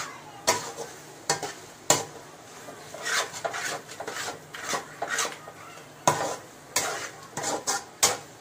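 Flat metal spatula stirring and scraping onion-tomato masala in an aluminium kadai, with irregular sharp clanks of metal on metal and stretches of scraping between them. The masala sizzles in the oil underneath.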